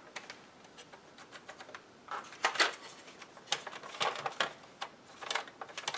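Scattered clicks and small plastic knocks from hands working on a Nissan Titan's HVAC control panel, with its dash-panel screws being backed off so the buttons stop binding. The clicks come a few at a time from about two seconds in.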